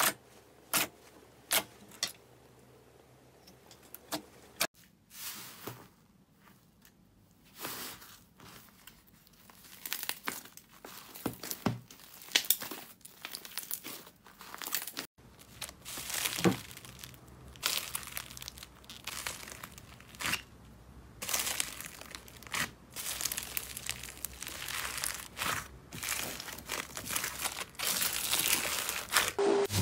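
Slime being played with by hand. First come sharp wet clicks and pops as fingertips poke into a glossy slime. After a short pause there is a long stretch of crinkling and crackling as a fluffy slime is stretched and a foam-bead slime is squeezed.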